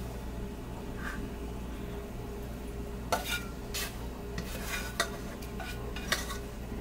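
Saucepan scraping and clinking as softened apple slices are emptied from it into a pie dish, a handful of short scrapes and knocks spread through, over a low steady hum.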